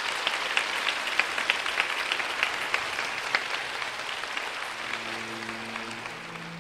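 Theatre audience applauding, the clapping slowly thinning out. Near the end, orchestral music for the next dance begins with soft held notes.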